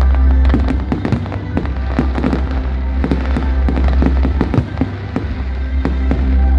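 Display fireworks bursting and crackling in rapid, irregular succession, over loud accompanying music with a heavy bass.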